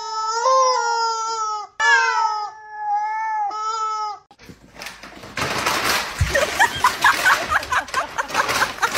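A squeezed yellow rubber screaming-chicken toy letting out a few long, loud screams at a steady pitch with short breaks between them, then cut off. After that comes a rustling, scraping noise, and people laughing.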